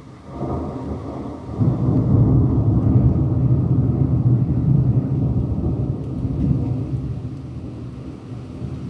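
Thunder rumbling. A low roll starts softly, swells sharply about a second and a half in, stays loud for several seconds, then slowly dies away.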